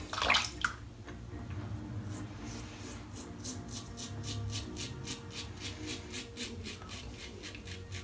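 Supply safety razor scraping through one day's light stubble in quick, even short strokes, about five a second, with one longer, louder scrape just after the start. The blade is well worn after many shaves.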